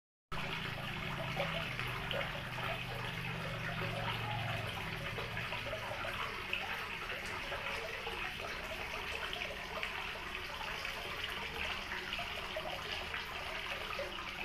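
Steady sound of running, splashing water, with a low hum underneath that fades out about five seconds in.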